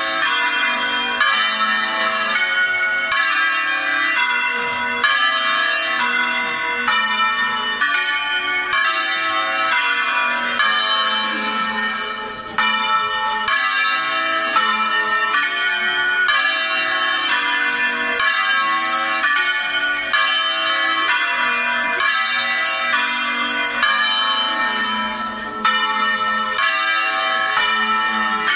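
A ring of six church bells in A-flat, swung full-circle by hand in the Veronese style (alla veronese), striking one after another in a steady run of strokes, about two a second, with two brief dips in loudness.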